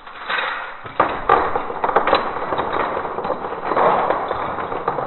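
ShengShou 5x5 speed cube's plastic pieces clicking and clattering in quick, uneven bursts as the burst cube is handled and turned, with a couple of sharper knocks about a second in.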